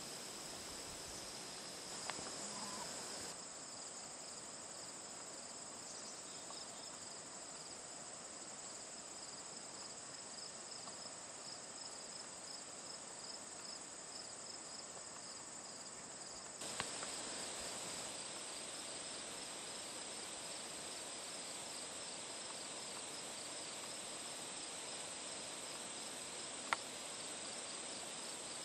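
Crickets chirping in a steady chorus, a high, evenly pulsing trill, with a few faint clicks.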